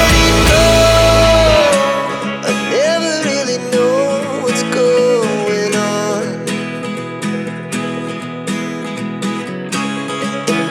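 Background music. A loud passage with heavy bass stops about a second and a half in, and a quieter guitar-led section with a wavering melody line follows.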